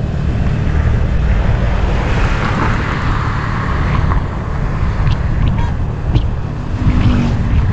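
Steady low rumble of a vehicle on the move, engine and road noise, with a few light clicks.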